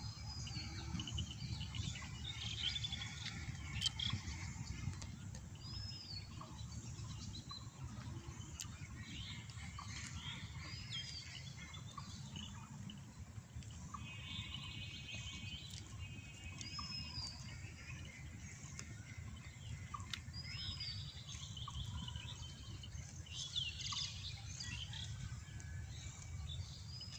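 Birds calling and chirping in open country, one repeating a short arched whistle every few seconds, with a quick trill near the middle. Under them runs a steady low rumble.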